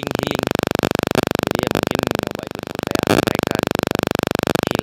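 Harsh, rapid, even electronic buzz from a water-damaged phone's audio, its speaker wrecked after falling into a river. A voice only barely shows through the buzz now and then.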